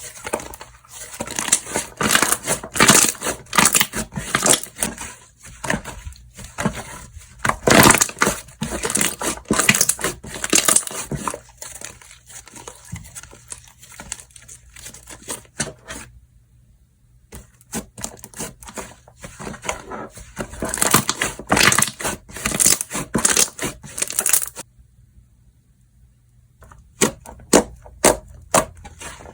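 Slime being handled: squeezed, pressed and stretched, giving a dense run of crackling clicks and pops. There are two short pauses in the second half.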